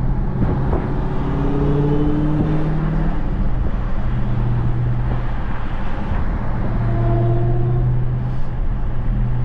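Dodge Charger Hellcat's supercharged 6.2-litre HEMI V8 running at low speed, heard through a partly opened window: a steady low drone whose pitch rises gently twice as it pulls ahead, about a second in and again near the end.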